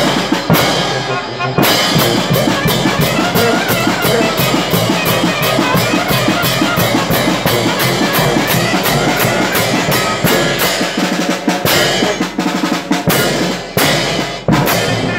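Drum-heavy marching music, with snare and bass drums beating a steady rhythm of about four strokes a second under the band.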